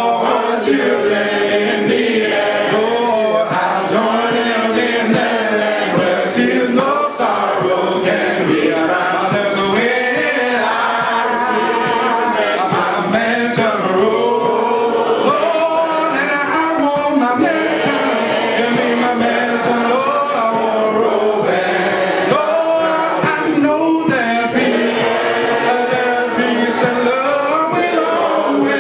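A man singing a gospel song unaccompanied (a cappella), with other voices singing along.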